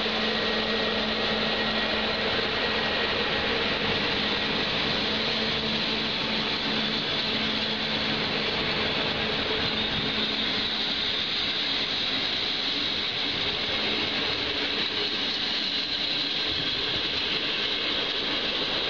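A passing train's wheels rolling steadily on the rails, with a low hum that drops out about seven seconds in.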